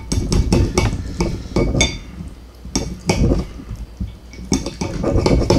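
Steak knife and fork scraping and clinking against a ceramic plate while cutting through a ribeye steak, in irregular strokes.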